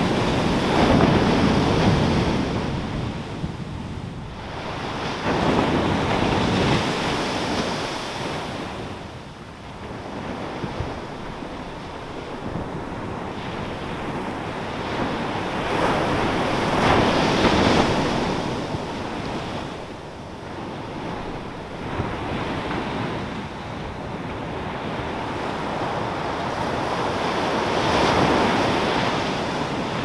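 Small Pacific Ocean waves breaking and washing up a sandy beach, the surf rising and falling in irregular surges.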